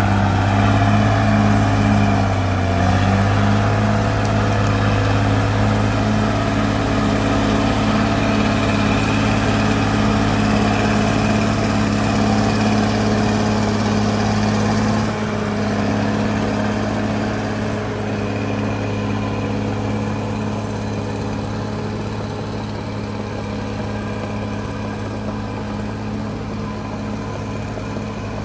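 Caterpillar D6R XL bulldozer's diesel engine running steadily, its pitch dipping briefly about three seconds in and its level easing off a little about halfway through.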